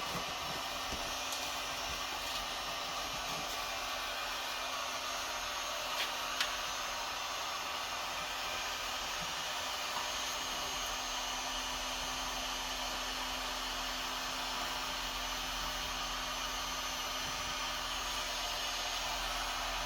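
Heat gun running steadily, a constant blowing noise with a low hum, used to warm the glue on a car headliner; a couple of light clicks about six seconds in.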